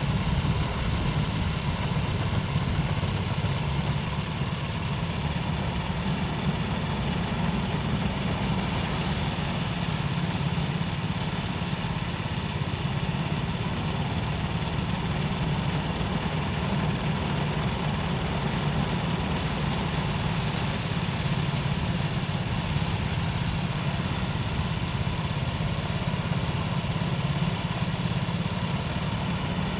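Engine-driven rice threshing machine running steadily, a continuous low engine drone.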